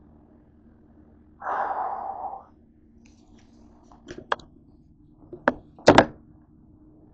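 A second-long rustling noise, then a few sharp knocks and a loud double thunk near the end as a phone or camera is moved and set down on a kitchen countertop.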